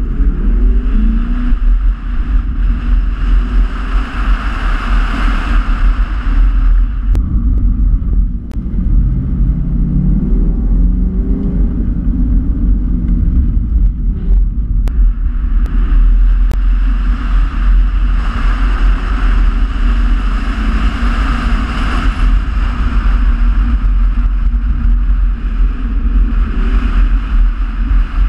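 A car's engine revving up and falling back again and again as it is driven hard through tight turns, heard from inside the cabin over a heavy low rumble and road noise. A few brief clicks are heard along the way.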